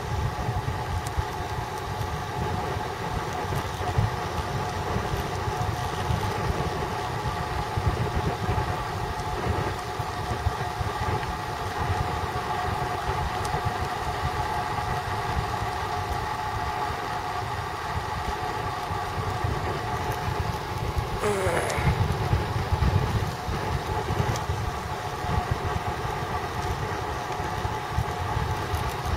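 Wind rush and road rumble from a road bicycle descending a mountain road at speed, heard from a camera riding on the bike, with a steady whine over it. About 21 seconds in, a brief falling squeal.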